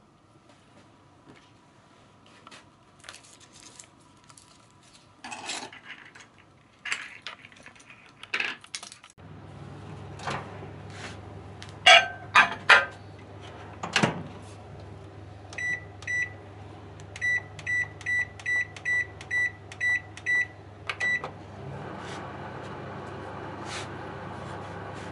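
Toshiba microwave oven being loaded and started. First come light clinks and taps of kitchen utensils, then loud clacks as a covered plate goes in and the door shuts. Next comes a run of about a dozen short keypad beeps at one pitch, and the oven starts up with a steady running hum.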